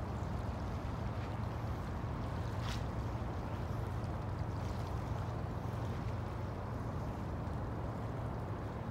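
Steady low hum and rumble of a moored ship's running machinery, unchanging throughout.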